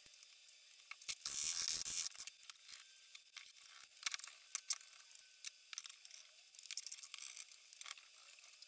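Steel F-style bar clamps being set and tightened: a brief loud scrape about a second in, then a run of small irregular metal clicks and ticks as the jaws are slid and the screw handles turned.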